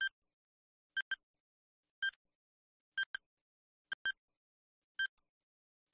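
Countdown timer ticking sound effect: a short, high-pitched double tick once a second, about six times.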